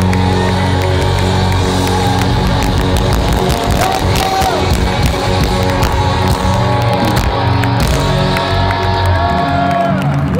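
Rock band playing live through a stadium sound system, with electric guitars, bass and drums, and the crowd cheering along.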